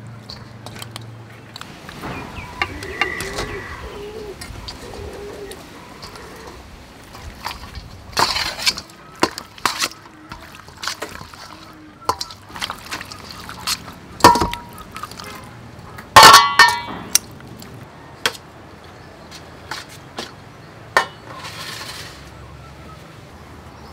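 Metal tongs knocking and scraping against a stainless steel mixing bowl as pork pieces and eggs are tossed in a wet sauce marinade: scattered clinks, with a few louder clanks that ring briefly.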